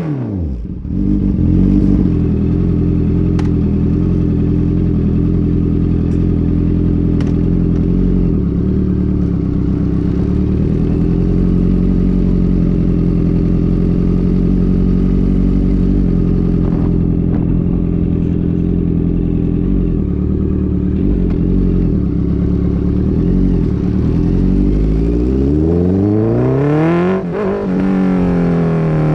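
Honda CB650F inline-four running through a full Mivv MK3 straight-through exhaust with no catalytic converter, holding a steady engine note for most of the time. The pitch climbs and then falls away a few seconds before the end.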